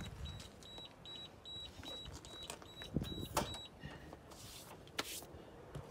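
A wired probe thermometer's alarm beeping: short high-pitched beeps, about two or three a second, that stop about three and a half seconds in, signalling that the chicken has reached its target temperature. A few sharp clicks and knocks from handling at the grill come in the second half.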